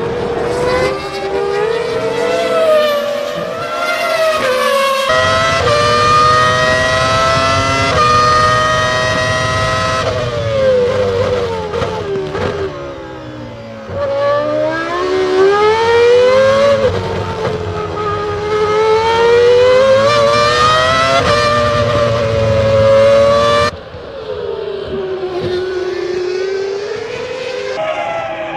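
1998 Formula One cars' V10 engines running at high revs, their pitch climbing and dropping through gear changes and braking. The sound jumps abruptly several times as different shots are cut together.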